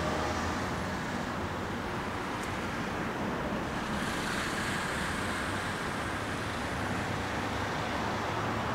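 Steady road traffic noise, car tyres and engines blending into a continuous hiss and rumble, with the hiss growing a little brighter from about four seconds in.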